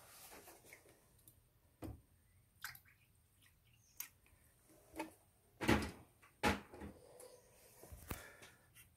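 A few scattered light knocks and clicks from hands working in an engine bay, the loudest a little past halfway.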